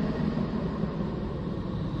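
Planetary 'space sound' made by turning radio and plasma-wave signals recorded in space into audio: a steady low rumbling drone with faint held tones above it.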